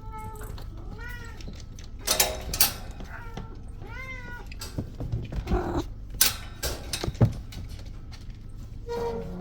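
Kittens meowing: several short meows that rise and fall in pitch. Between them come a few sharp knocks, the loudest sounds.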